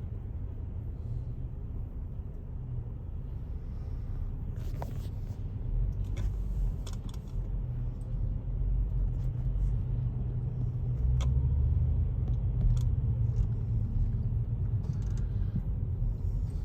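Low road and engine rumble heard inside a car on the highway, with a few faint clicks.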